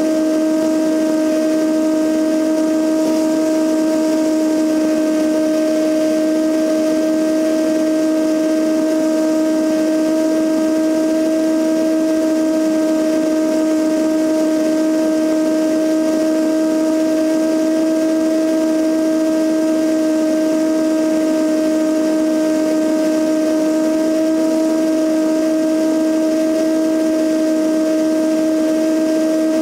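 Cessna 172N in steady cruise flight, heard from a camera mounted outside under the wing: an unchanging drone of engine, propeller and rushing airflow, with a strong constant whistle-like tone running through it.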